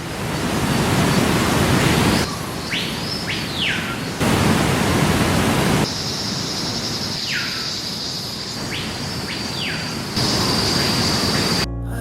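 Waterfall cascading down rocks, a steady loud rush whose level jumps at several cuts. A bird calls twice, each time a pair of whistles sweeping up and back down, and a thin steady high insect-like tone runs through the second half.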